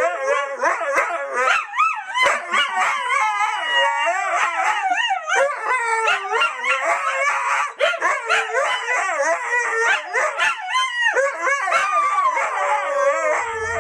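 A dog howling and 'singing' continuously, its pitch wavering and sliding up and down without a break.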